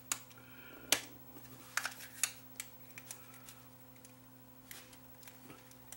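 Light clicks and taps of a small screwdriver and fingers against a plastic night-light case as its tiny screws are worked at: scattered ticks, the sharpest about a second in, over a faint steady hum.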